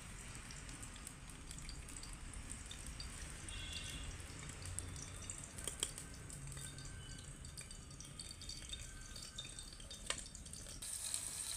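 Food being worked by hand and spoon in steel bowls: soft wet handling sounds with a few sharp metallic clinks, two of them loudest, the second near the end.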